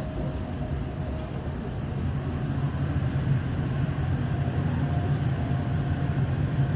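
Steady low rumble of an artificial-tornado exhibit's fan running, growing a little louder about two seconds in.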